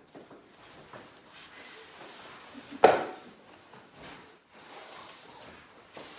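A thrown person landing on the padded training mat: one sharp, loud slap about three seconds in, amid soft rustling of gi cloth and shuffling feet.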